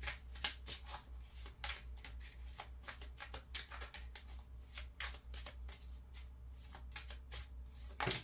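A tarot deck being shuffled by hand: an irregular run of quick soft flicks and card-on-card slaps, with a louder slap near the end. A steady low hum runs underneath.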